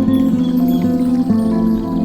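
Calm new-age relaxation music with bell-like tones, long held notes with new ones struck every half second or so.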